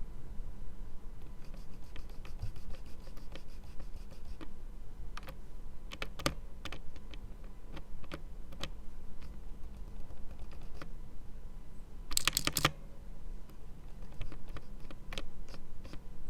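Keys of a cheap hot-swap mechanical keyboard being typed on and pressed, with greased stabilisers. There is a fast run of key clicks near the start, then separate presses, and a louder cluster of clacks about twelve seconds in. This is the after-lubrication sound test: much less stabiliser rattle than before, though the backspace key may still need a little more work.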